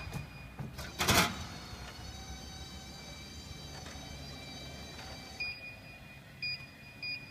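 Vending machine keypad beeping three times as its buttons are pressed: short beeps of the same pitch, about a second apart, near the end. A brief loud knock about a second in.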